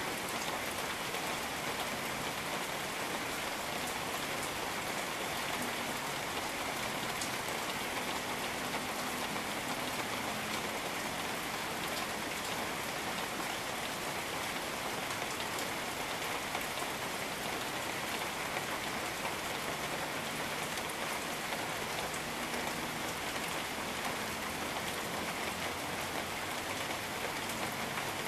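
Steady rain falling on rainforest, with scattered individual drops ticking through the even hiss.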